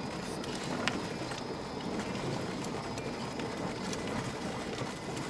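Car driving on an unpaved sandy track, heard from inside the cabin: a steady rumble of tyres and engine, with several sharp clicks, the loudest about a second in.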